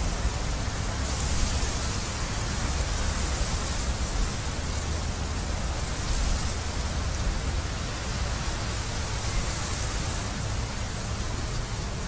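Wind rushing through a field of green barley and buffeting the microphone: a steady hiss with an uneven low rumble underneath.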